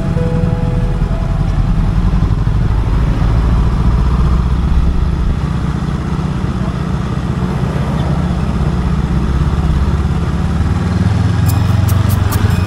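Motorcycle riding in slow traffic: a steady low engine rumble mixed with road and wind noise. A fast, even ticking starts near the end.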